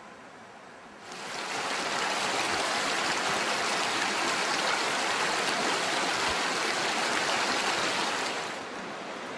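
Steady rush of flowing river water, starting abruptly about a second in and falling to a lower level shortly before the end.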